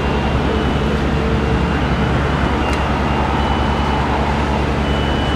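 Emirates Airbus A380-842's four Rolls-Royce Trent 900 turbofans running at low taxi thrust: a steady rumble, with a faint high whine coming and going.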